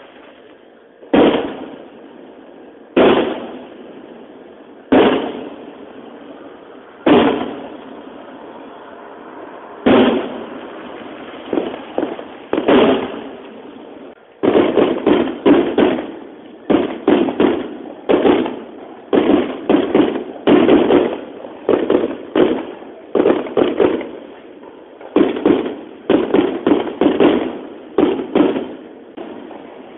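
Aerial firework shells bursting: single loud bangs about every two seconds at first, then from about halfway rapid volleys of several bangs a second. Each bang trails off in a short rumble.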